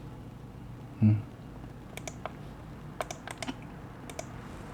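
Scattered light clicks and taps, several in quick groups in the second half, with one short low sound about a second in.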